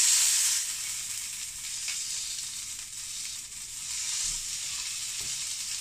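Duck breast sizzling in a frying pan as its edges are seared: a steady hiss that swells louder at the start and again about four seconds in.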